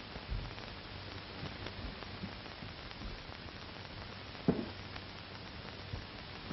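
Steady hiss and low hum of an early-1930s optical film soundtrack, with one short thump about four and a half seconds in.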